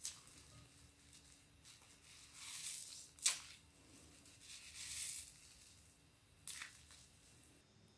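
A slime-soaked foam sponge squeezed by hand: wet squelching and crackling in two longer swells, with three sharp pops, the loudest a little past three seconds in.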